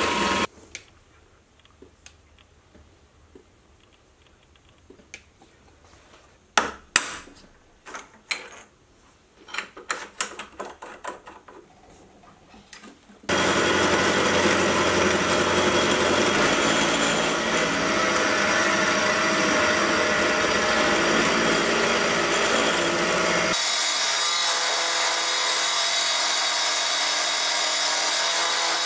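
A milling machine's end mill cutting a slot in mild steel under flood coolant. The cutting stops half a second in, leaving a quiet stretch with a string of sharp knocks and clicks. Cutting starts again loudly about thirteen seconds in, and its sound changes abruptly near the end.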